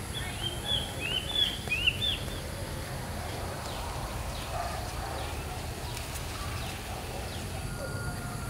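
A bird chirping a quick run of short, high notes during the first two seconds, then fainter, falling calls, over a steady low background rumble.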